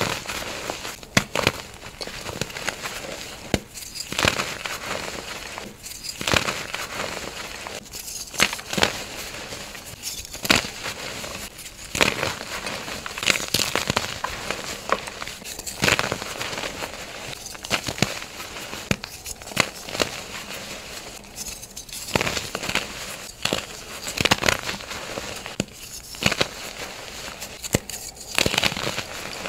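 Reformed gym chalk crunching and crumbling as bare hands squeeze and break the soft blocks in loose chalk powder. There are irregular sharp crunches, about one every second or two, over a soft powdery crackle.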